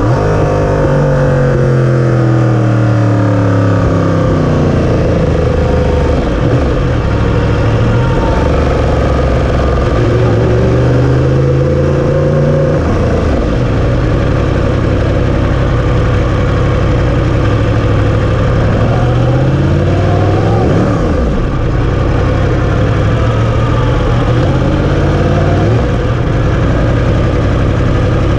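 Sport bike engine running at low revs as the bike slows from track speed: its pitch falls over the first few seconds, then holds low with several short rises as the throttle is opened briefly, over wind and road noise.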